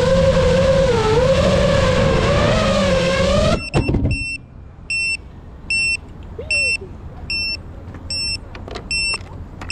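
GEPRC Mark5 FPV quadcopter's motors and propellers whining at a steady pitch that wavers slightly with throttle, then cutting off suddenly about three and a half seconds in. After that comes a regular series of short, high beeps from the quad's buzzer, a little over one per second.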